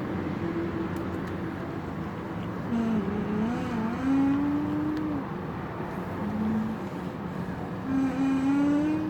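Volkswagen Passat B5 front strut top mount creaking in three drawn-out squeaks: one about three seconds in lasting about two seconds, a short one near six seconds, and a third near the end. They sit over a steady background rumble. The creak is the sign of a worn strut mount bearing.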